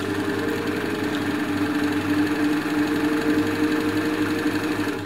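Elna Lotus SP sewing machine running steadily as it stitches the narrow side bar of a buttonhole, with the motor's hum and the regular clatter of the needle mechanism. It stops near the end.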